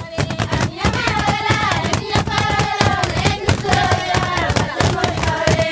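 Grain poured from a raised basin falling in a stream during winnowing, a dense patter of many small rapid clicks. A woman's voice sings long held notes over it.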